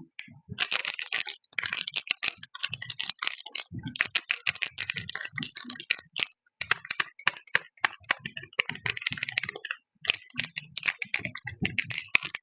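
Soap packaging being handled and opened, crinkling and crackling in dense runs with a few brief pauses.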